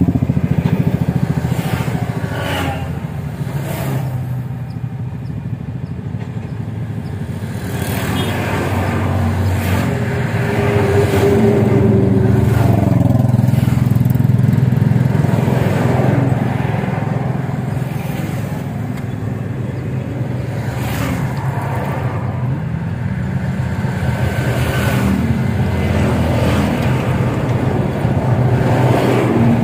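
A heavy machine's engine running continuously, swelling and easing in loudness as it works, with a few sharp knocks of metal.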